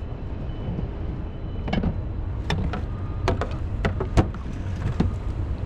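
Wind rumbling on the microphone, with about half a dozen sharp clicks and knocks, the loudest about four seconds in.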